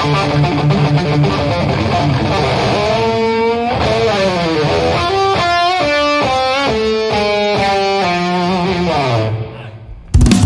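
Live rock band with an electric guitar solo over bass and drums: held notes, then fast runs of single notes climbing and falling. The band cuts out briefly near the end, then comes back in with a loud hit and a held chord.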